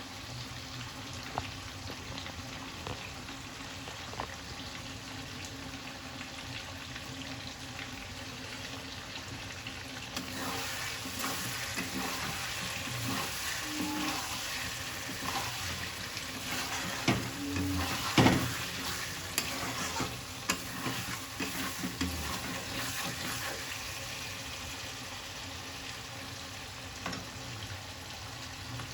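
Chicken sizzling as it fries in a pan. From about a third of the way in it is stirred, with a run of sharp knocks of the spoon against the pan; the loudest come just past the middle, and the sizzle settles again toward the end.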